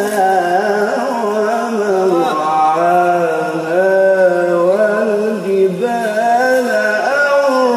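A male qari reciting the Quran in melodic tajweed style, drawing out long ornamented phrases with the voice gliding up and down in pitch and holding notes.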